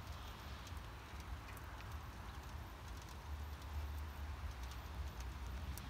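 Wind buffeting the microphone, a low fluctuating rumble, with faint scattered ticks over a soft outdoor hiss. No crossing alarm or train is heard.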